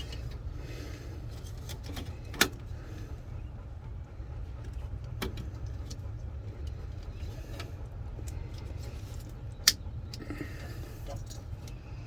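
Small clicks and rattles of handling wiring and plastic parts while a turn signal switch connector is worked into place under a pickup's steering column. Two sharp clicks stand out, one about two seconds in and one near the end, over a steady low hum.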